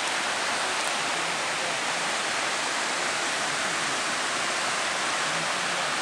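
Steady rushing of a mountain river running over rocks and boulders, an even hiss with no separate events.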